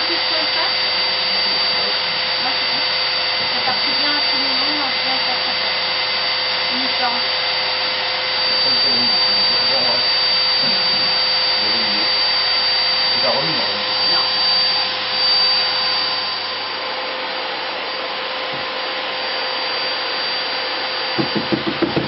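An electric fan-blower running steadily: a constant hiss with a thin, steady whine on top.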